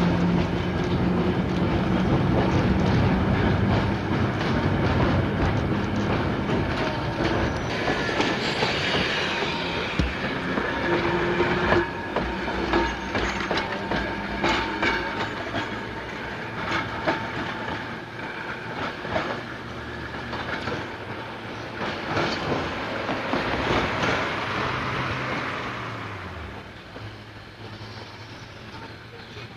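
Streetcar running along the track: a steady rumble with wheels clicking over rail joints. The sound fades away near the end.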